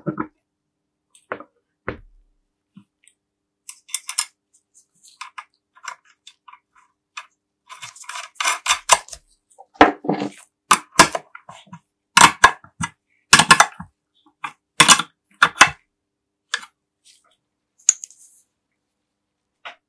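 Small metal parts and hand tools clicking, clinking and scraping as they are handled, in short clusters with pauses between, busiest and loudest in the middle stretch.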